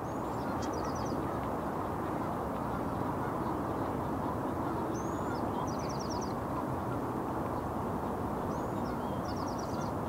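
Steady rumble of heavy freeway traffic, with a small bird's short high-pitched song heard three times: a slurred note followed by a quick run of four or five notes.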